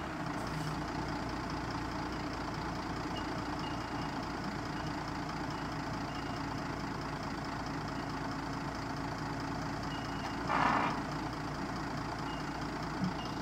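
Volvo G88 truck's diesel engine idling steadily, with a brief hiss about ten and a half seconds in.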